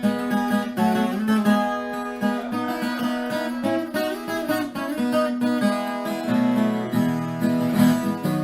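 Instrumental moda de viola: a viola caipira, a Brazilian steel-strung folk guitar, picked and strummed in a steady run of notes.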